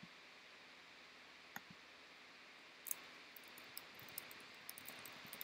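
A single computer mouse click, then a louder pair of clicks a little later, followed by a quick run of light keyboard key taps as a filename is typed, all over a faint steady hiss.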